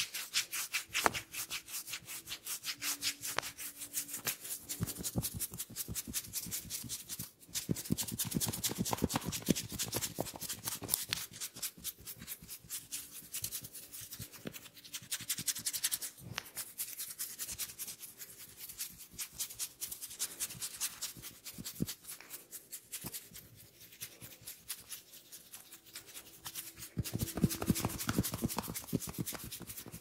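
Fingers rubbing and scratching through oiled hair on a scalp in a head massage: a fast, crackly run of rubbing strokes, louder about eight seconds in and again near the end.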